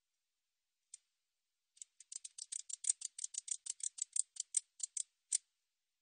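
A 베짱이붙이 katydid stridulating. One lone tick comes about a second in, then a run of about twenty short, dry, high-pitched clicks at roughly six a second, which stops abruptly.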